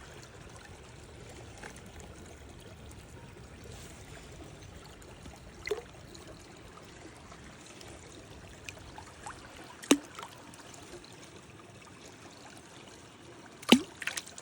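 Creek water running and trickling steadily. Three short sharp clicks or knocks break through it, about six seconds in, about ten seconds in and just before the end.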